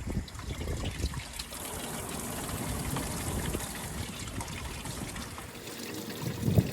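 Water running and splashing steadily as a freshly cut head of romaine lettuce is rinsed at a wash station.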